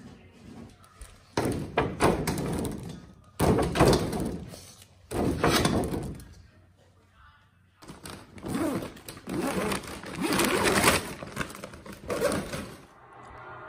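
Plastic packaging and a woven plastic storage bag being handled: several spells of loud crinkling and rustling, with thumps, separated by short pauses.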